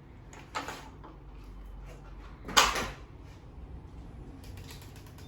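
Two brief handling sounds from lab equipment, a small knock about half a second in and a louder, slightly longer scrape or clack about two and a half seconds in, over a faint low hum.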